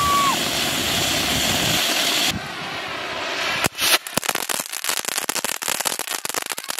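Firework fountain spraying sparks with a loud steady hiss, a brief whistle at the very start; the hiss cuts off about two seconds in. A sharp crack follows, then dense rapid crackling from a handheld spark-spraying firework.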